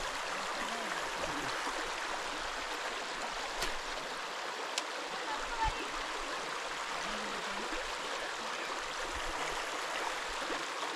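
A mountain river's current rushing steadily. A couple of faint clicks and a soft knock come through it about halfway.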